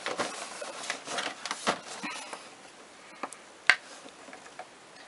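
Cardboard packaging being handled, rustling and scraping for about two seconds, then a few light clicks. A single sharp click about two-thirds through is the loudest sound.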